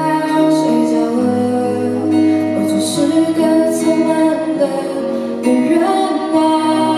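Music from a slow ballad: an instrumental passage between sung lines, with long held notes that change every second or so.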